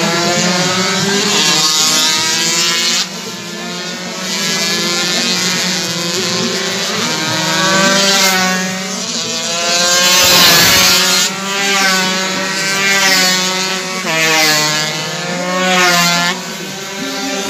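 Two-stroke 125cc underbone race motorcycles passing at racing speed, several in succession. Their high engine note climbs and drops again and again as they accelerate and shift, loudest about halfway through.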